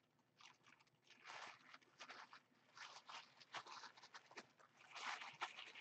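Faint rustling and crinkling of tissue paper in irregular bursts as the layers of a tissue-paper flower are pulled up and fluffed out by hand, a little louder near the end.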